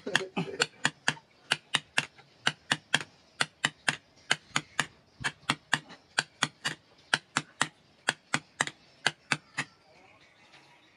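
Steady hammer blows, about three a second, on a hot metal tang, driving it down into a wooden handle, which smokes as it burns in. The blows stop near the end.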